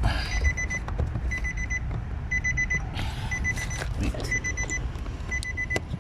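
Nissan X-Trail T31's warning chime beeping in quick groups of four short high beeps, about once a second, with a few clicks and rustles of plastic trim being handled.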